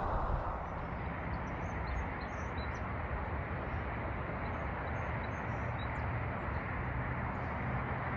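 Steady low rushing outdoor background noise, with faint, brief bird chirps high above it.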